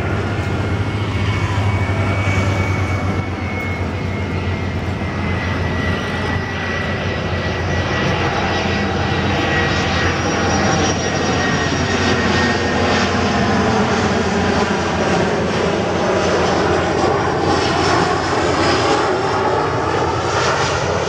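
Boeing 737-300 freighter on final approach, its two CFM56-3 turbofans running with a high fan whine that slides slowly down in pitch. The engine noise grows gradually louder as the jet comes nearer.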